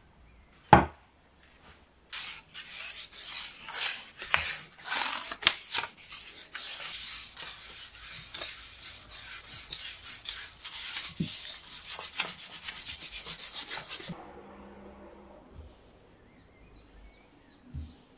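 A wooden axe handle being rubbed by hand in quick back-and-forth abrasive strokes that speed up toward the end and stop about two-thirds of the way through. It is preceded about a second in by a single sharp knock, the loudest sound, as the handle is set on the workbench. A soft thump comes near the end.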